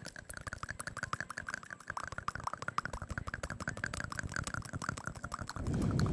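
Layered ASMR mouth sounds: quick wet tongue and lip clicks and pops close to the microphone, many a second. A louder, lower rushing sound comes in near the end.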